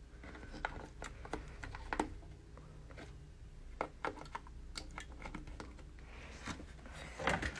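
Light, irregular clicks and taps from handling the phone and the wooden frame, over a faint steady low hum.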